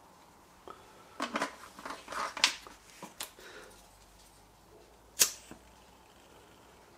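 Small clicks and knocks of a plastic bottle being capped and set down on a hard worktop and a lighter picked up, then one sharp click about five seconds in as the lighter is struck to light the priming fuel in the cup of a vintage brass Primus 96 paraffin stove.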